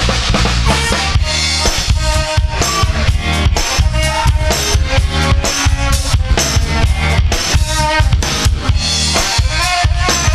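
Live R&B band playing an instrumental groove: drum kit with bass drum and snare on a steady beat, bass, and a melody line over it.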